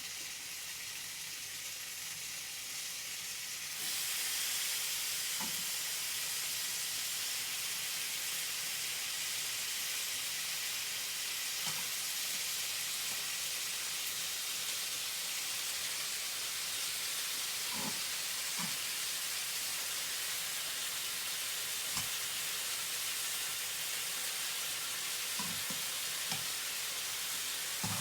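Eggplant and peeled tomatoes frying in oil in a pan: a steady sizzle that grows louder about four seconds in, with a few light knocks.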